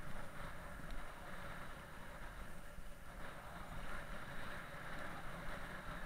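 Steady wind rush on an action camera's microphone while riding a mountain bike, with the tyres rolling on a tarmac lane as a low, even rumble.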